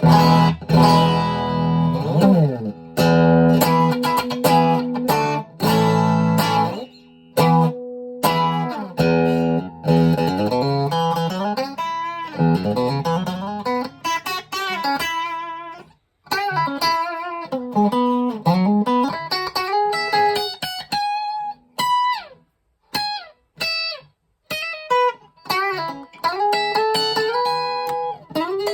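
Schecter OL-PT-TH thinline electric guitar played through a VOX Mini5 practice amp. It opens with ringing chords for the first several seconds, then moves to single-note lead phrases with string bends, broken by short pauses between phrases.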